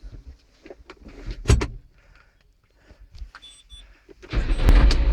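Scattered clicks and a sharp knock, then a little over four seconds in a vehicle engine starts up suddenly and runs loudly and steadily.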